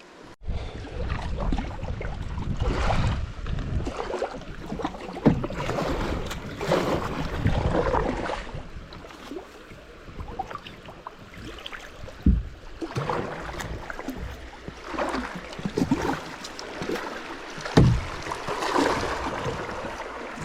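Kayak paddling on a creek: irregular paddle strokes swishing and splashing in the water, with two dull thumps, one about halfway through and one near the end.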